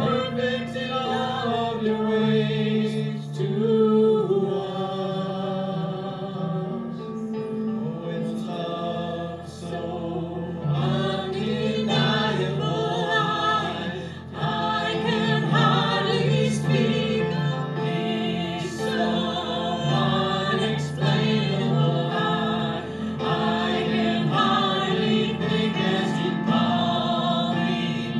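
Church worship music: several voices singing together over instrumental accompaniment with long held bass notes.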